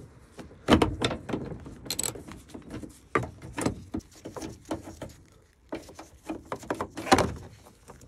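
Socket wrench working loose a 16 mm seat-belt upper anchor bolt: a run of irregular metallic clicks and knocks, with two louder knocks about a second in and near the end.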